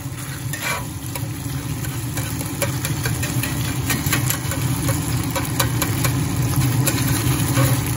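Breakfast sausage sizzling and crackling in a hot cast-iron pan as it is stirred with a spatula, with many small pops over a steady low hum.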